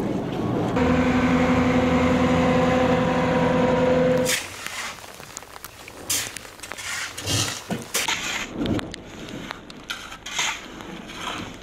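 A steady, loud motor drone cuts off about four seconds in. Then metal shovels scrape and scoop volcanic ash on a concrete roof, in irregular scrapes and clinks.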